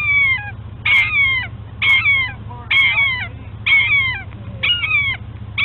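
An animal giving a series of high cries, roughly one a second, each starting sharply and falling in pitch over about half a second.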